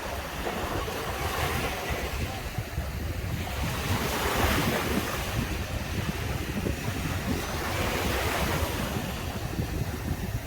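Ocean waves breaking and washing onto a beach, swelling louder about four and eight seconds in, with wind rumbling on the microphone.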